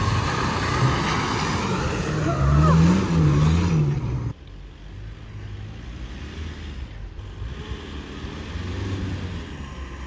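A small 4x4's engine runs hard as it drives through a shallow river, with water splashing and spraying. About four seconds in, this cuts off abruptly to the quieter steady running of a pickup truck's engine as it moves slowly over sand.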